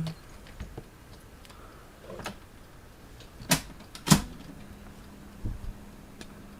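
Mechanical controls on a 1970s Sanyo STD-1410 stereo cassette deck clicking as they are switched and pressed: a few sharp clicks, the loudest two about 3.5 and 4 seconds in. Right after the loudest click a faint steady hum starts as the tape transport runs.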